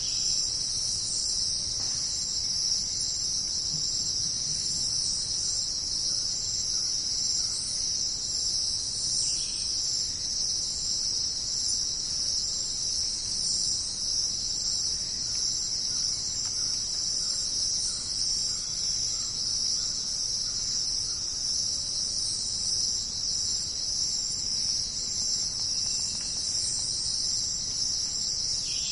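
Steady, high-pitched chorus of crickets and other insects in a jungle night ambience, with no thunder heard.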